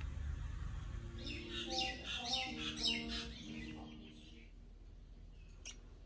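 Parrot calling: a run of chirps and short whistled notes at changing pitches, starting about a second in and fading out after about three seconds.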